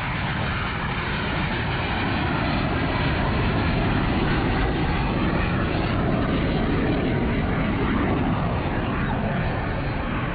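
Jet noise from a Blue Angels F/A-18 Hornet in flight, a steady, loud rushing sound that swells a little through the middle and eases near the end, with a faint falling note as it moves away.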